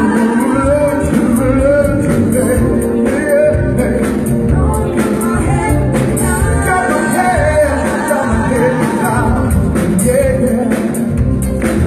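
Live band music: a male vocalist singing a wavering melody over electric guitar, bass and drums, with a steady beat.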